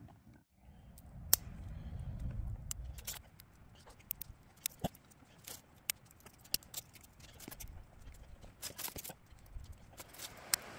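Irregular sharp clicks and ticks, about fifteen of them scattered through the stretch, over a low rumble.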